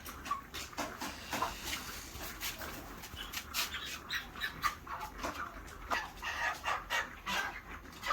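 A flock of 40-day-old broiler chickens calling: many short, overlapping chirps and clucks, continuing without a break.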